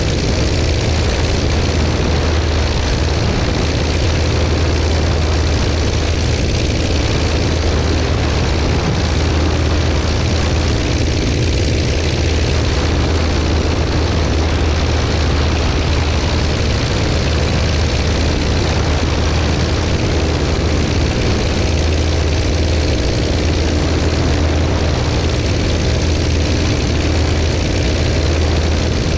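Legal Eagle ultralight aircraft's engine and propeller running steadily at constant power, with a strong low drone.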